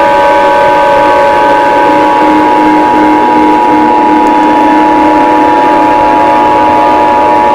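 Emergency Alert System attention signal: a loud, steady two-tone electronic alarm held without a break, with a noisy haze and weaker lower tones mixed beneath it.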